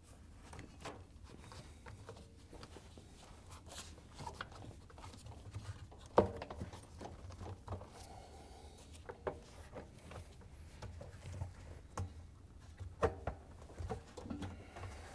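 Gloved hands working a rubber washer door bellow seal onto the lip of the outer tub: soft rubbing and scattered light knocks, with a sharper knock about six seconds in and a couple more near the end.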